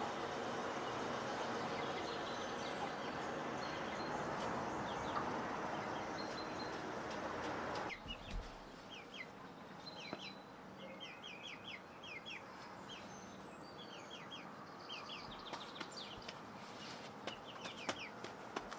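A handheld gas canister torch blowing a steady hissing flame into a wood-fired oven. It stops suddenly about eight seconds in, and then chickens cluck among many quick, high chirps.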